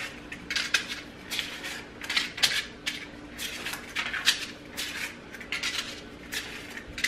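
Paper cupcake liners being peeled off a stack and set down: a quick, irregular run of short crisp rustles and light taps.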